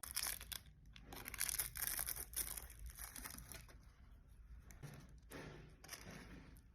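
A crinkly bag of salt and vinegar chips being handled, rustling and tearing in bursts, loudest in the first three seconds and fainter after.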